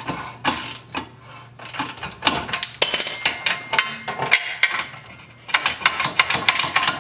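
Hand ratchet clicking in short runs, stroke after stroke, as it tightens a screw-type press tool to push an old trailing-arm bushing out of the rear spindle.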